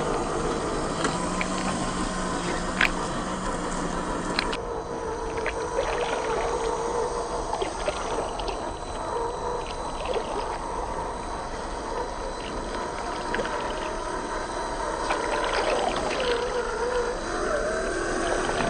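Electric motor and gear whine of a 1/10 scale RC crawler driving through mud, its pitch wavering up and down with the throttle, with a few short clicks.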